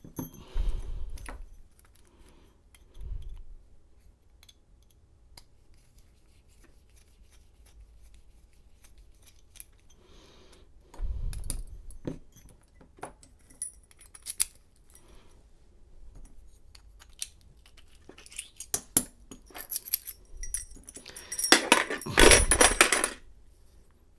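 Small metal lock parts clicking and clinking by hand while a lock cylinder is rekeyed: scattered light ticks and taps, then a louder burst of metallic jangling about two seconds before the end.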